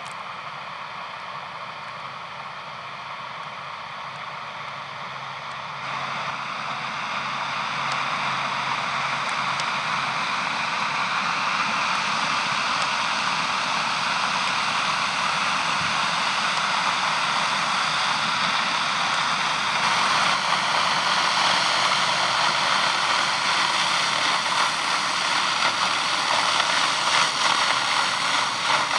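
John Deere 6R-series tractor running under load as it pulls a muck spreader whose spinning spreading mechanism throws slurry out in a steady, rushing spray. The sound grows louder as the rig comes closer, stepping up about six seconds in.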